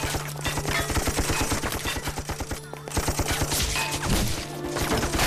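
A heavy volley of gunfire, many rapid overlapping shots a second, with a short lull near the middle.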